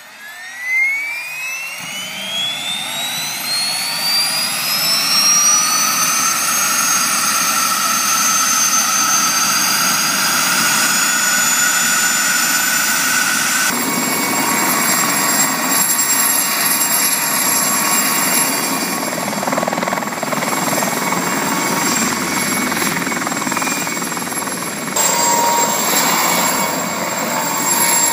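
Mosquito ultralight helicopter starting up: a whine rises steadily in pitch over the first several seconds as the engine spools up, then levels off. After about 14 s the engine and rotors run steadily at speed, then the helicopter lifts off into a hover.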